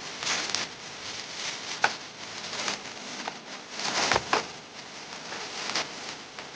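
Toy packaging being handled and opened: irregular rustling and crinkling with a few sharp clicks, the loudest burst about four seconds in.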